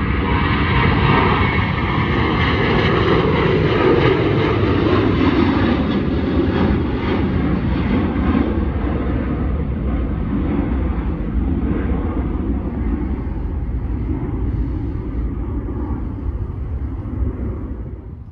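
Twin-engine jet airliner at takeoff power as it lifts off and climbs away: a loud, dense rumble of jet noise, loudest in the first few seconds, then slowly fading and cut off abruptly at the end.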